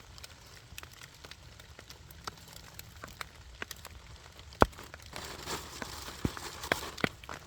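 Wood fire crackling with scattered small pops and one loud sharp snap a little past halfway, over a faint steady hiss of rain.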